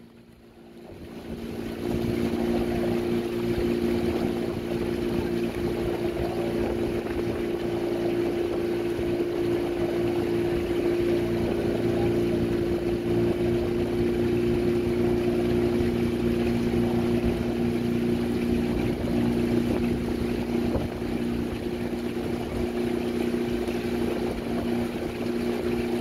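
Outboard motor of a small launch running steadily at low speed, a constant hum that comes up over the first couple of seconds, with wind buffeting the microphone.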